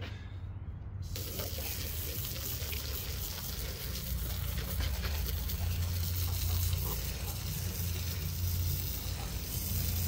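Tru Cut sawmill running and cutting through a catalpa log: a steady low engine hum under a rushing hiss of the blade in the wood, which comes in suddenly about a second in and slowly grows louder.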